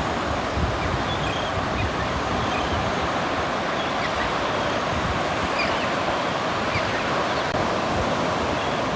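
Steady surf washing onto a Gulf beach, with wind buffeting the microphone.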